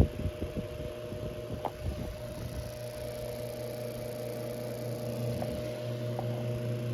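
Antique Emerson Electric 11644 8-inch table fan's AC motor running after a hand start, with a steady electrical hum and some irregular knocks in the first couple of seconds. The noise comes from a start switch fault that the owner cannot pin down: a burnt switch, a burnt winding or a switch not engaging.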